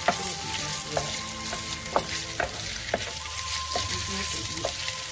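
Diced marinated pork fillet and shallots sizzling in a hot square pan as a wooden spatula stirs them, with a steady hiss and a sharp knock of the spatula against the pan about every half second.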